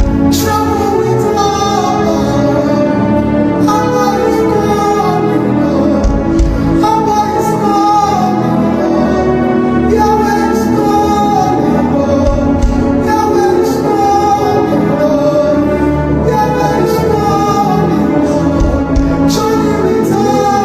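Slow worship music: singing over sustained held chords, with deep bass notes about every six seconds.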